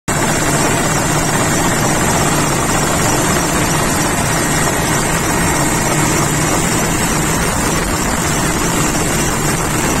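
Loud, steady helicopter engine and rotor noise, unchanging throughout.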